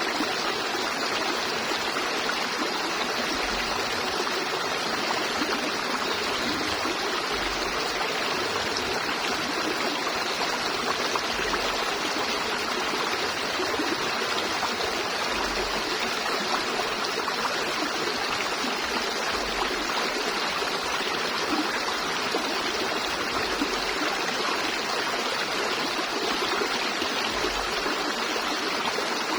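River water flowing over stones, a steady rushing babble with no break or change.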